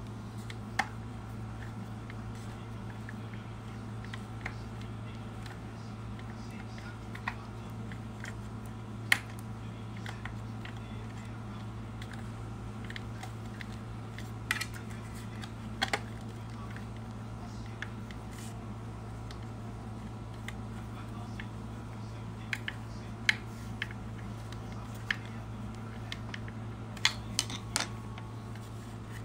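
Scattered light clicks and taps of a screwdriver turning the fender screw on an electric scooter's front wheel hub, over a steady low hum.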